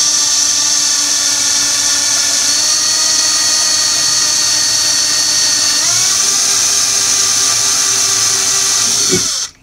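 Hand-held electric drill with a small bit running steadily, drilling out the rivet of a die-cast toy car. Its pitch shifts about six seconds in, and the motor stops suddenly near the end.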